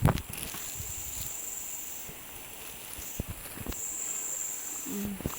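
Insects buzzing at a high pitch in stretches of about a second at a time, over faint outdoor hiss, with a few soft taps.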